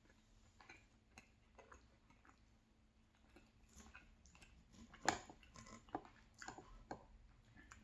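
Faint eating sounds: soft chewing and scattered light clicks of a utensil on a plate while a salmon pie is eaten, with one sharper click about five seconds in.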